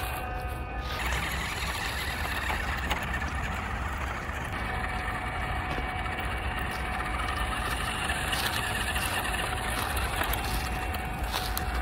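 1/10-scale RC mini pickup truck driving over dirt and dry fallen leaves: the steady whine of its motor and gears over the rustle and crunch of its tyres.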